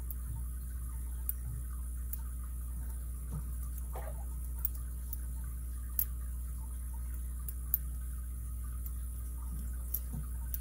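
Faint, irregular small metallic clicks of a pick and tension wrench working inside a Master Lock M15 padlock, over a steady low hum.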